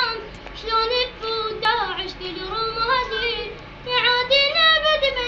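A child singing solo in a high voice, holding long notes that waver and slide between pitches in phrases broken by short breaths.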